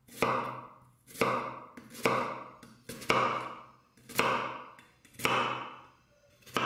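Chef's knife slicing down through a halved onion onto a wooden cutting board, about six cuts at roughly one a second, each a sharp tap with a short crackle after it.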